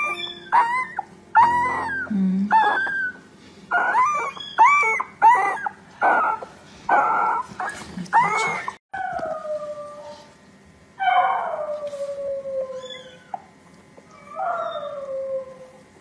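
Two-week-old puppy crying in distress as maggots are picked out of its infested ear with tweezers: a quick run of short, high-pitched cries that rise and fall, then three longer wails that fall in pitch.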